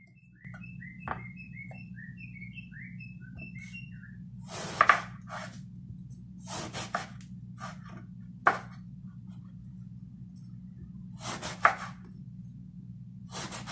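Kitchen knife slicing through an eggplant and knocking on a wooden cutting board, about eight separate cuts in the second half, over a steady low hum. In the first few seconds, a quick run of short high chirping notes.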